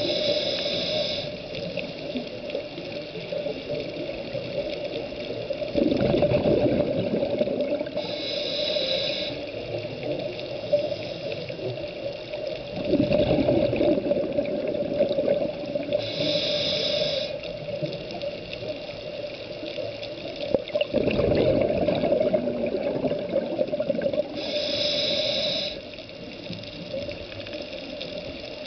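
Scuba diver breathing through a regulator underwater: a short hiss of inhalation about every eight seconds, four times, each followed a few seconds later by a longer rush of exhaled bubbles. A steady hum runs under it.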